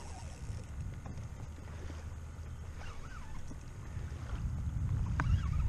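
Wind rumbling on the microphone over water moving along a fishing kayak's hull as a hooked fish tows it, with a few faint clicks and squeaks; the rumble grows louder toward the end.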